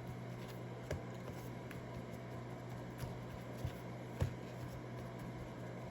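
Faint handling noise with a few soft, scattered taps as pork chops are worked in flour, over a steady low hum.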